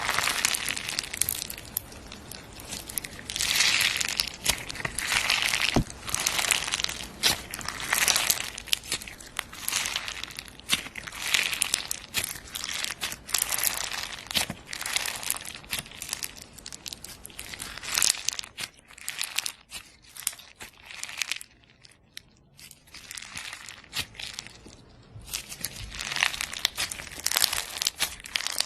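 Slime being squeezed, poked and stretched by hand, giving a dense run of sharp crackles and pops. It eases off to a quieter stretch about two-thirds of the way through, then picks up again near the end.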